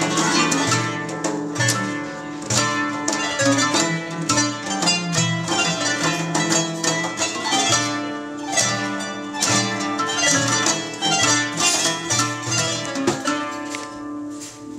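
Middle Eastern instrumental music played live on kanun and oud: a quick run of plucked notes over a steady low pulse, with a frame drum. The playing thins out near the end as the piece closes.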